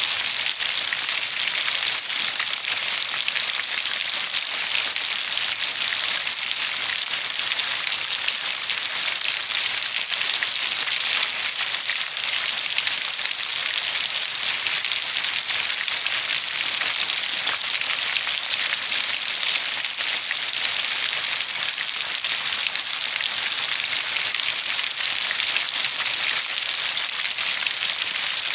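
Steady heavy rain falling on a surface, an even hiss of many fine drops.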